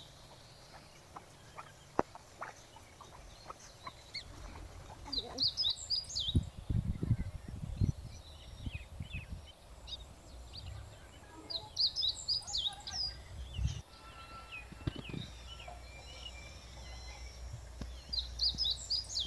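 A bird singing a short phrase of quick high notes, repeated three times about six seconds apart, with fainter calls in between. There are low rumbling bumps in the middle and near the end.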